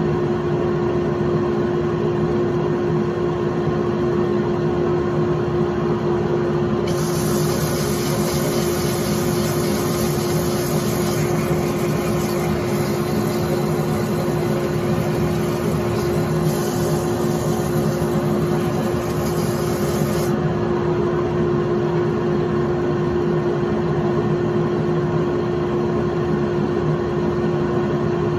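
Wood lathe running with a steady hum. From about 7 to 20 seconds in, a hiss is added on top as sandpaper is held against the spinning wooden disc, then drops away.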